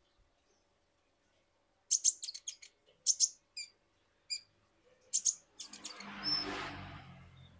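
Male kolibri ninja sunbird giving quick clusters of sharp, very high chirps, starting about two seconds in and again around five seconds. A brief rushing noise swells up and fades near the end.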